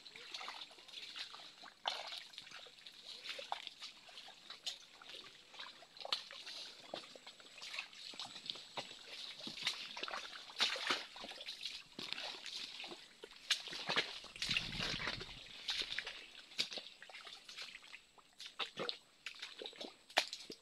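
Footsteps squelching and crackling through wet mangrove mud and undergrowth, a busy run of small irregular clicks and wet sloshes.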